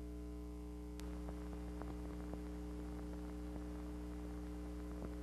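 A faint, steady electrical hum with a light hiss from the recording's background. There is a sharp click about a second in and a few faint ticks after it.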